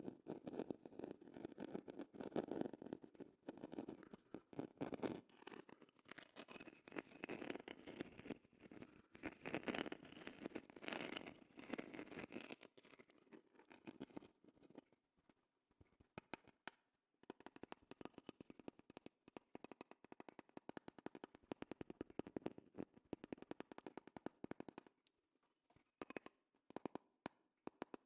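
Close-miked scratching and tapping on a shell: a dense run of small rapid scratches, fuller and lower for the first half, then after a short pause thinner and higher-pitched, ending in a few scattered taps.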